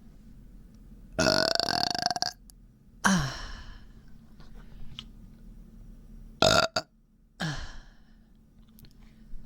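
A person belching four times from a bloated, upset stomach. The first burp is long, about a second; the second starts with a drop in pitch, and the last two are short.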